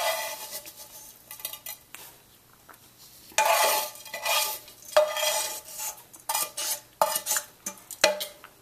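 A metal spoon scraping and knocking in a frying pan as fried soya chunks are scooped out. A few scrapes open, then after a quiet stretch of about a second and a half comes a run of short, irregular scrapes.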